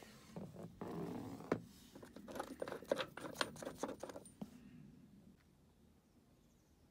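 Quick metal clicks, clinks and scrapes as a metal disc is set into a van's floor lashing point and screwed down with a star Allen key; the clatter stops about four and a half seconds in.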